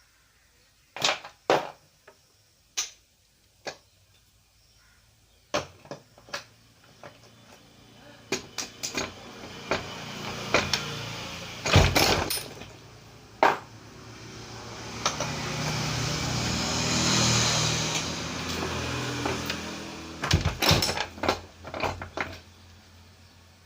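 Sharp clicks and taps of small parts being handled on a workbench. In the middle, an engine sound swells up, peaks and fades over about twelve seconds, like a vehicle passing.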